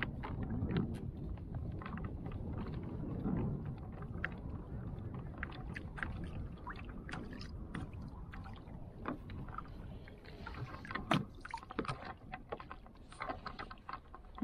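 Water lapping and slapping against a fishing kayak's hull, with scattered sharp clicks and knocks that come more often in the last few seconds.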